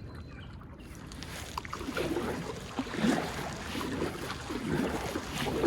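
Kayak paddle strokes dipping and pulling through the water at about one stroke a second as the kayak is paddled upstream against the current. The strokes start about two seconds in, over a low, steady rush of water and wind.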